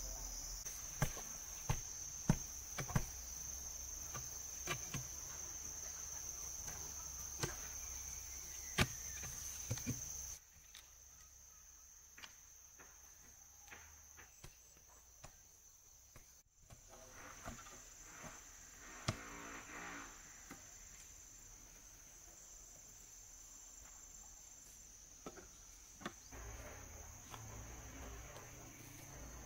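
A steady, high-pitched insect chorus, with irregular sharp knocks through the first ten seconds.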